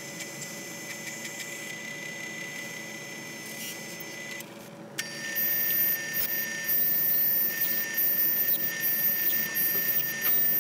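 Small metal lathe running while its cutting tool takes a cut across the face of a steel flange blank. A little under halfway through the cut gets louder and turns into a very high-pitched squeal that breaks off and starts again until near the end.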